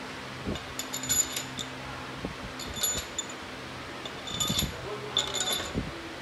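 Metal engine bolts clinking together as they are handled, in four short clusters of light clinks, over a steady low hum.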